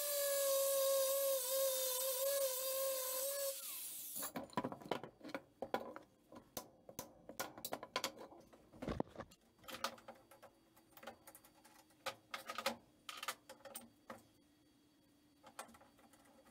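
Angle grinder running on steel with a steady whine for about the first three and a half seconds, then switched off. After that come scattered clicks and knocks of steel pieces and tools being handled on a wooden bench.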